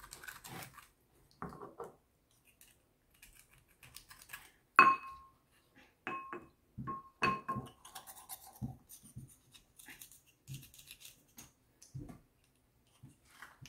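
A hard tool scraping and knocking in a bowl of muddy water while a fossil replica is scrubbed clean. About five seconds in, and three more times over the next few seconds, the tool strikes the bowl, and each knock gives a short ring at the same pitch; the first is the loudest.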